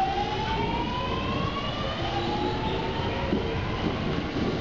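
Chūō–Sōbu Line local electric train pulling out of the platform: its traction motors whine in a rising tone that climbs, levels off and starts again lower about halfway through, over the rumble of the wheels on the rails.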